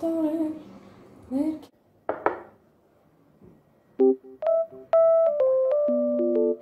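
A voice heard briefly in the first two seconds, then a pause, then piano music beginning about four seconds in with single notes building into held chords.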